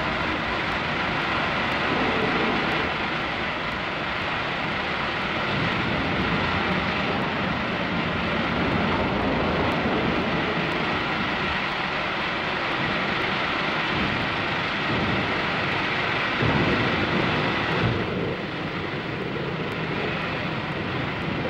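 Steam locomotive standing at a station platform, a steady hissing roar of steam with irregular low rumbles, heard through an old film soundtrack.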